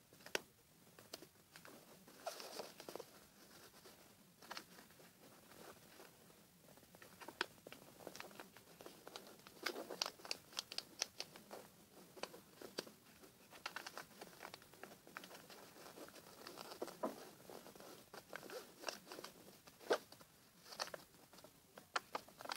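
A sheet of paper being folded and creased by hand in origami: faint, irregular rustles and crinkles that come in short spells, with sharp little crackles as the folds are pressed.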